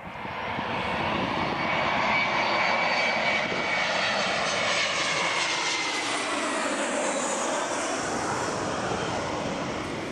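Swiss Airbus A321-111 on landing approach passing low overhead: the rumble and high whine of its CFM56 jet engines swell up within about a second, hold loud for several seconds, then begin to fade near the end, the pitch sweeping down as it goes by.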